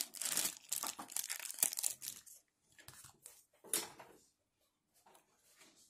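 Thin clear plastic bag crinkling and tearing as it is pulled off a figure's round black plastic display base. The crinkling is dense for about two seconds, then thins to scattered rustles with one louder crinkle near the end.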